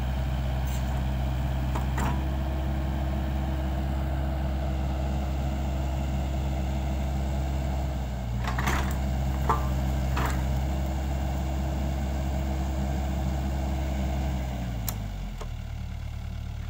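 SANY SY55C mini excavator's diesel engine running steadily at working speed, with a few sharp knocks. About fifteen seconds in, the engine speed falls away to a lower, quieter idle.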